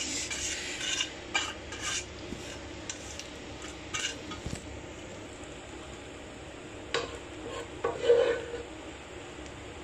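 Boiled spaghetti tipped from a bowl into a cooking pot, with the bowl and utensils knocking and scraping against the pot in short scattered clatters. The loudest knock comes about eight seconds in.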